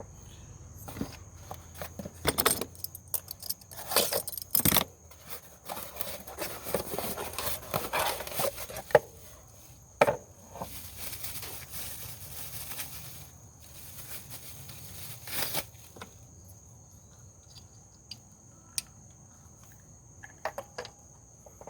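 Hands working on the engine's ignition coils: irregular plastic clicks, knocks and rattles as a coil and its connector are unclipped and handled, busy through the first two thirds, then only a few scattered clicks.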